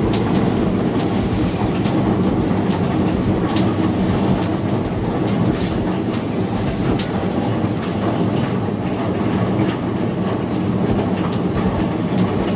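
Drum-type chicken feather plucker running: a steady rumbling churn with many irregular knocks as scalded chickens tumble against the spinning drum's rubber fingers.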